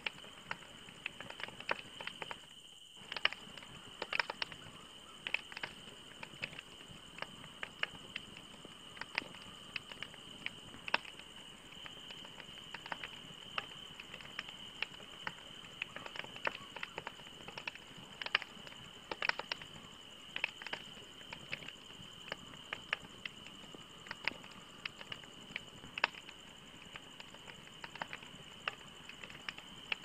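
Wood campfire crackling: irregular sharp pops and snaps from the burning logs, several a second, over a steady high-pitched tone. The sound drops out briefly about three seconds in.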